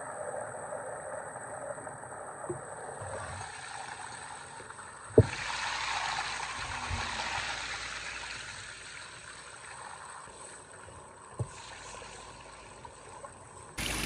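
Water sloshing and splashing in a cow water trough as it is scrubbed out by hand with a brush, louder for a few seconds after the midpoint. A sharp knock about five seconds in, and another about eleven seconds in.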